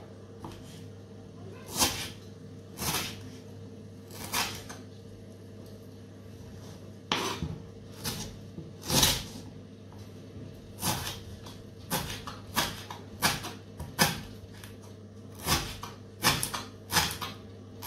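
Kitchen knife chopping on a wooden cutting board while dicing raw mango: sharp, irregular knocks of the blade striking the board, bunched several a second in the second half, over a steady low hum.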